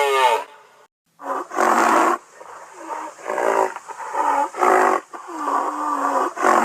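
Composite creature sound effect for a western black rhinoceros, layered from rhinoceros, triceratops and bull recordings: a pitched call ending about half a second in, then after a short pause a string of about six short pitched calls.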